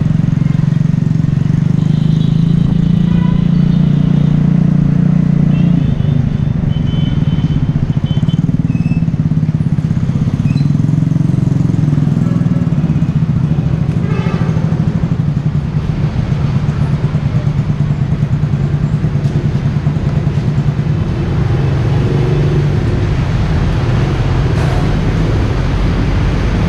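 Yamaha Taurus motorcycle engine and exhaust running while riding, a steady low drone whose note changes about six seconds in.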